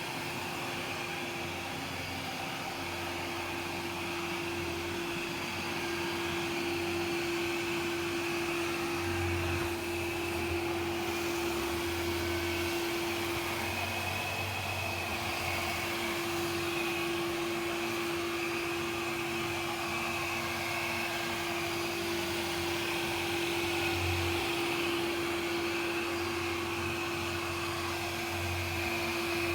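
Vacuum cleaner running steadily: one even tone over a rush of air.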